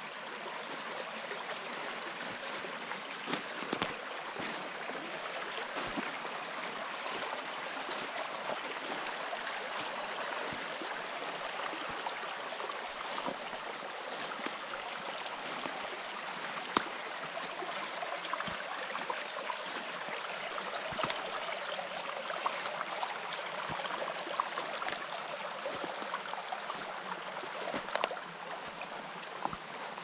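Steady rush of running water with scattered sharp clicks.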